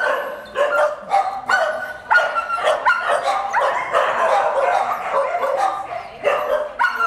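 Many kennelled dogs barking and yelping together, the barks overlapping into a continuous chorus.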